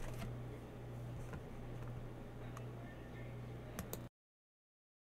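Faint room tone with a steady low hum and a few soft ticks, cutting off to dead silence about four seconds in.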